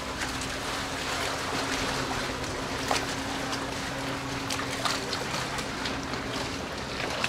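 Outdoor ambience: a steady rushing noise with a low, even hum under it and a few short clicks.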